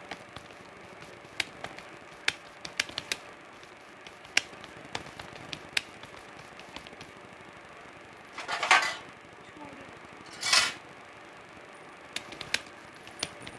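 Computer keyboard keys clicking in scattered, irregular single strokes, with two louder half-second bursts of noise a little past the middle.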